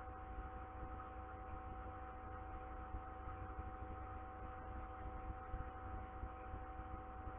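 Steady electrical hum with several constant tones over a faint hiss, unchanging throughout.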